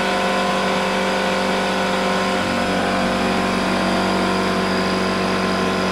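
Porter-Cable 6-gallon oil-free pancake air compressor running loud and steady as it fills its tank: a constant motor hum over an even hiss, loud enough that one has to yell over it.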